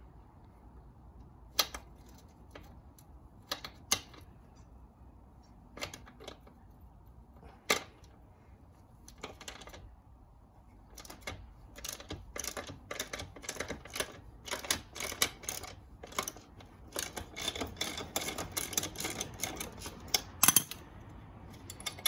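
Socket ratchet clicking while undoing a motorcycle's 21 mm rear axle nut: a few separate clicks at first, then quick runs of ratchet clicks through the second half.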